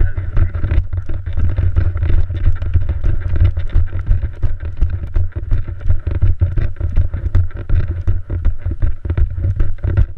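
Wind buffeting the microphone: a loud low rumble that gusts and flutters.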